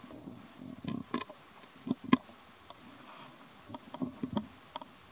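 A young macaque chewing fruit: irregular soft crunches and sharp mouth clicks in two short clusters, one about a second in and one near the end.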